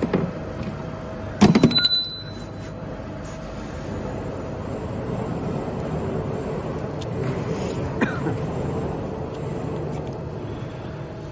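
Steady workshop machinery hum, with a sharp metallic clatter and brief high ringing about a second and a half in.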